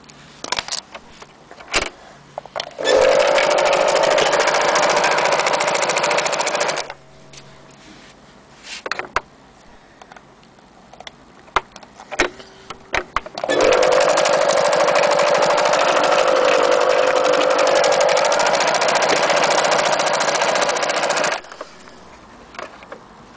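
Singer electric sewing machine running at speed and stitching in two steady runs of several seconds each, with short clicks and knocks between the runs.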